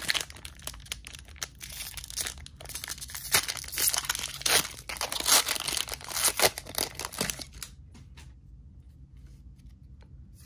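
Foil wrapper of a Disney Lorcana booster pack being torn open and crinkled in the hands: a dense crackling rustle with several sharp, louder tears. About seven and a half seconds in it dies down to faint light ticks of the cards being handled.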